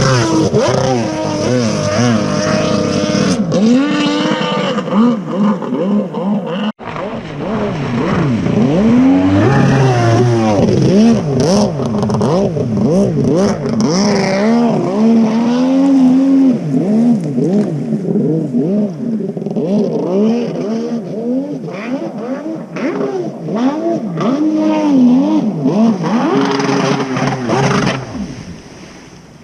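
Kawasaki 650SX stand-up jet ski with a swapped-in 1100cc three-cylinder two-stroke engine, run hard on a timed lap. The engine pitch rises and falls again and again as the rider throttles up and backs off for the turns. The sound cuts out for an instant about seven seconds in and dies away near the end.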